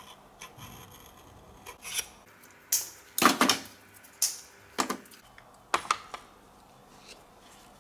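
A steel scriber scratching layout lines into a blue-coated metal workpiece along a 3D-printed plastic template, with knocks from the clamp and hand tools being handled. The sounds are a handful of short, irregular scrapes and clacks, the longest and loudest a little over three seconds in.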